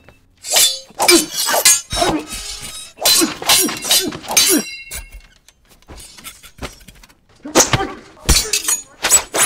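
Steel blades clashing in a fight: rapid metallic clanks and scrapes with short ringing, in two flurries with a quieter lull between them about five to seven seconds in.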